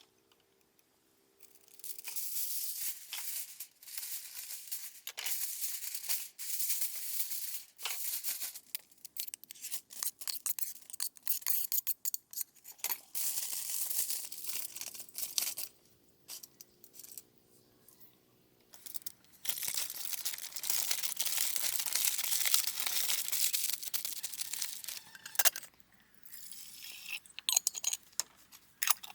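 Repeated stretches of hissy scraping and tearing noise broken by short pauses, typical of hands working rough plant building material.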